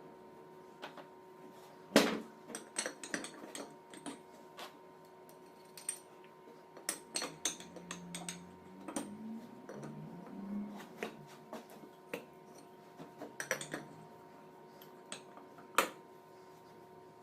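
Metal parts and hand tools clinking and knocking against each other during starter-motor repair work: an irregular run of sharp taps and clatter, the loudest about two seconds in and another near the end, over a steady faint electrical hum.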